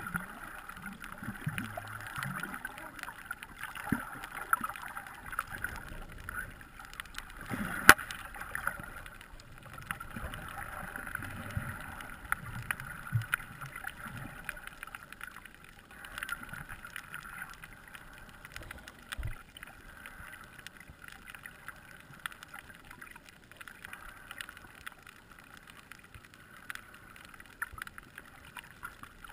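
Underwater ambience heard through a camera's waterproof housing: a steady muffled hiss with scattered faint clicks and crackles, and one sharp click about eight seconds in.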